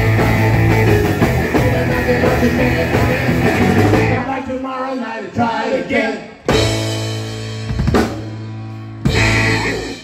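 Live rock band playing: electric guitars, bass, drums and singing. About four seconds in the full band drops out, leaving mostly the singer's voice. It then comes back with a few held, ringing chords that end the song.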